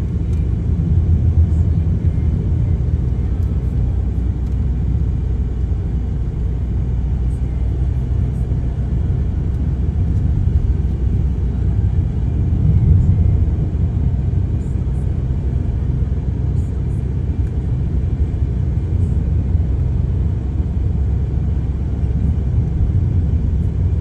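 Car driving along a paved road, heard from inside the cabin: a steady low rumble of engine and tyres on the road.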